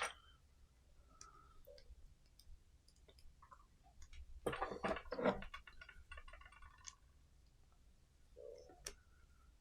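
Faint clicks and light rattling as the flexible metal arms and clamps of a third-hand soldering tool are handled and fitted, with a louder run of clicks about four and a half to five seconds in.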